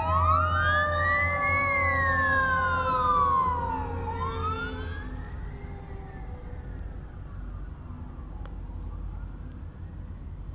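Fire truck sirens wailing on an emergency run, several overlapping, each rising and falling over about four seconds, over the low rumble of the trucks' engines. The sound drops off after about three and a half seconds as the trucks move away.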